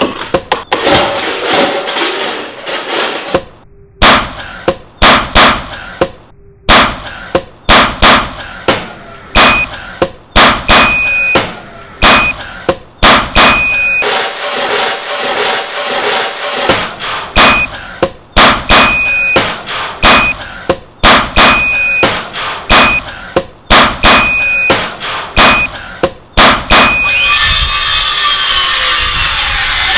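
A rapid, irregular series of sharp bangs and clanks, joined from about ten seconds in by short high beeps that repeat in a short-long pattern. It ends in a dense hiss for the last couple of seconds.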